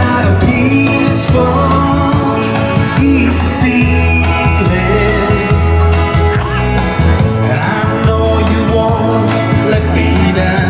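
Background music: a song with a singing voice over a steady low bass.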